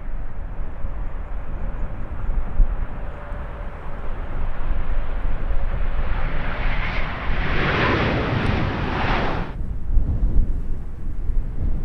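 Jet airliner passing close by, its engine noise swelling over several seconds and then cut off abruptly about three quarters of the way through. Low wind rumble on the microphone underneath.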